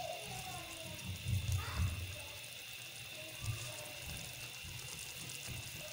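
Spice masala frying in oil in the pan, a faint steady sizzle, with a few soft low thumps about a second and a half and three and a half seconds in.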